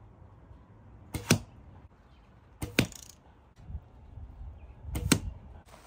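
Three arrows shot in turn from a hunting bow, each striking a straw-bale target with a sharp hit.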